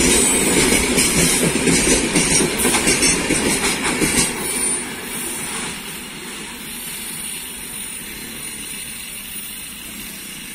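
Tail end of a freight train of open-top gondola wagons rolling past, wheels clacking over rail joints. The last wagon goes by about four seconds in, and the rumble drops and fades as the train moves away.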